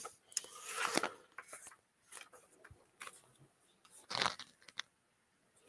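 Faint small handling noises: scattered light clicks and rustles, with a louder rustle about four seconds in.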